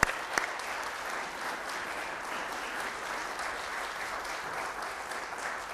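Audience applauding, a steady run of clapping that thins out near the end. A sharp knock sounds right at the start.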